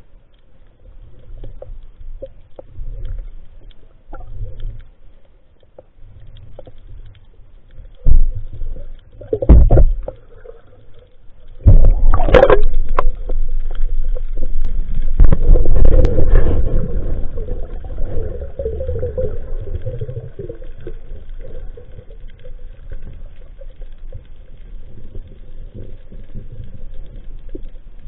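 Muffled underwater noise heard through an action camera's waterproof housing mounted on a speargun, with a steady low rumble of moving water. There are two loud thumps about eight and ten seconds in. A longer, louder run of knocks and rumbling follows from about twelve to seventeen seconds in, while a speared fish is being handled.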